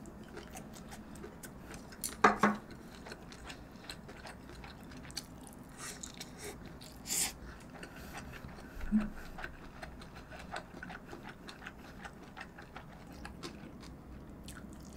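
A person eating braised kimchi with beef rib, chewing with scattered clicks of chopsticks and a spoon against the bowl. The loudest clatters come about two seconds in, with another knock about nine seconds in.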